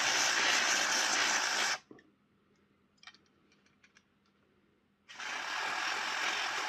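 Aerosol spray can hissing in two long bursts, flushing old grease out of a model locomotive's gearbox: one burst stops about two seconds in, the next starts about five seconds in. A few light clicks fall between them.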